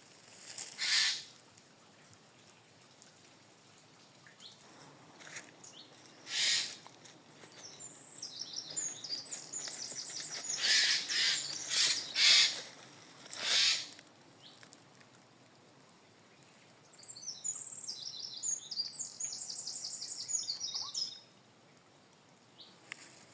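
Wild birds calling outdoors: two runs of rapid, high twittering song a few seconds long, and several loud, harsh single calls in between, the loudest ones near the middle.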